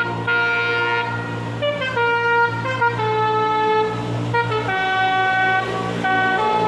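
Bus 'telolet' horn, a multi-trumpet air horn, playing a tune of held notes that step from pitch to pitch, over a steady low hum.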